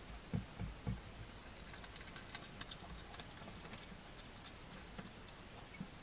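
Hedgehog feeding: a few soft low knocks in the first second, then a run of small crisp clicks as it crunches food.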